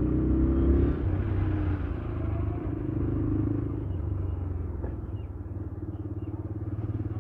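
TVS Raider 125's single-cylinder engine running steadily at low speed while riding through town traffic, a little louder in the first couple of seconds as a bus goes by close alongside.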